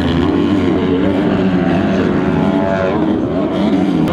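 Motocross dirt bike engines revving hard, the pitch rising and falling as the riders throttle through corners and jumps.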